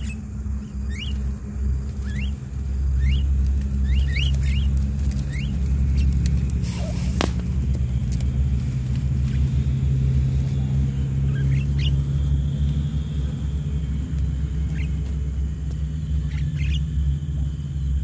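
A steady low rumble, louder after the first couple of seconds, with short rising bird chirps scattered through it and one sharp snap about seven seconds in.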